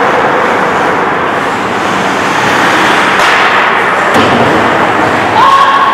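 Ice hockey rink sound during play: steady noise of skates on the ice and the reverberant arena, with a couple of sharp stick or puck knocks in the middle and a held shout near the end.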